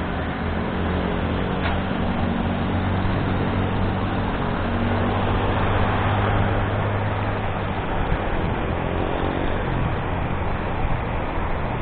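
Motorcycle engine running at steady riding speed under a constant rush of wind and road noise, the engine note swelling slightly midway and easing off again.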